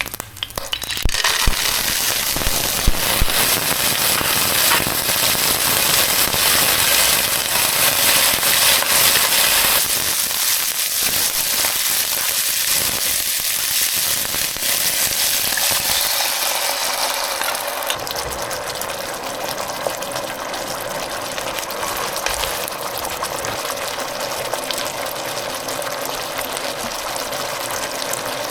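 Hot oil in a wok sizzling loudly as ingredients are stir-fried, with many small clicks and scrapes from the stirring. The sizzle jumps up about a second in, as something is added to the oil, and eases a little in the second half.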